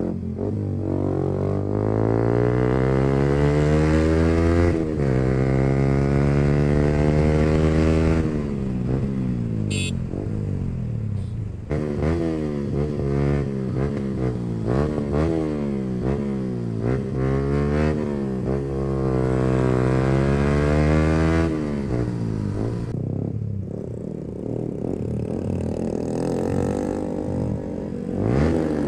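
Yamaha R15M's single-cylinder engine through a loud aftermarket full exhaust, accelerating through the gears. The pitch climbs and drops at each shift, rises and falls quickly over and over in the middle as the throttle is worked, then eases off to a lower, quieter run near the end.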